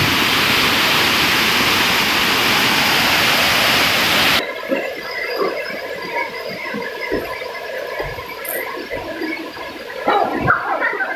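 Waterfall pouring into a pool: a loud, steady rush of water that cuts off abruptly about four seconds in. After that comes a quieter background with scattered low knocks.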